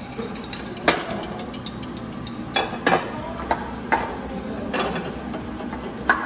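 Dishes clattering in a wooden kitchen drawer as they are rummaged through and lifted out: about seven sharp clinks and knocks at uneven intervals, the loudest about a second in.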